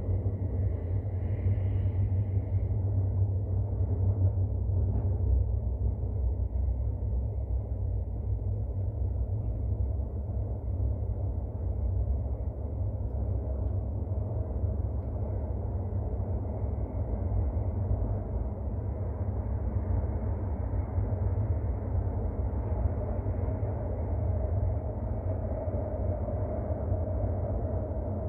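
Steady low rumble of an AS-14 metro train running through a tunnel, heard from inside the car, with a faint hum that comes up near the end.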